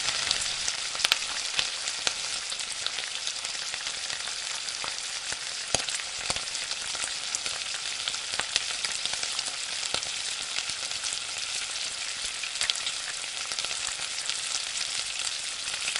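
Spiced minced mutton (keema) frying in oil in a wide metal pot, a steady sizzle, while a wooden spatula stirs it and now and then knocks or scrapes against the pot. The oil has separated and risen to the top, the sign that the masala is fully cooked.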